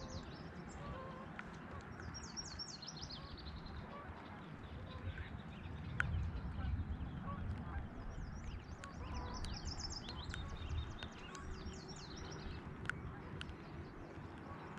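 Small birds singing repeated high, trilled phrases that fall in pitch, over a steady low rushing noise, with a couple of sharp clicks.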